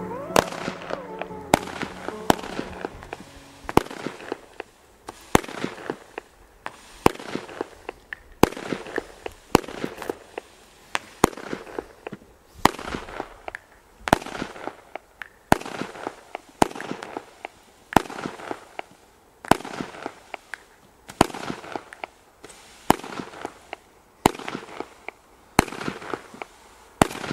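Heron PSP 1-9 firework battery (cake) firing its 20 shots one after another, about one every one and a half seconds. Each shot is a sharp bang followed by a fading fizzing hiss as the green fish effects with red pistils burst and swim.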